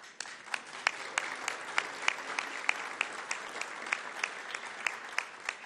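Audience applauding: a dense patter of claps with a few louder single claps standing out about three times a second, easing off near the end.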